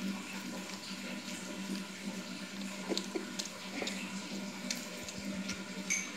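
A cat chewing a raw chicken foot, irregular wet crunches and clicks of teeth on bone, over a steady low hum.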